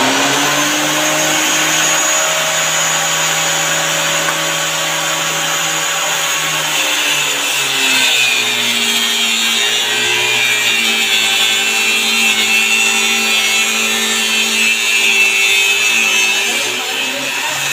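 Homemade cutter machine, an electric cutter motor mounted in a wooden box under a metal table, running steadily with its blade whining while wood is pushed through. The motor's pitch drops about seven seconds in as it takes the load of the cut, stays lower while cutting, and picks up again near the end.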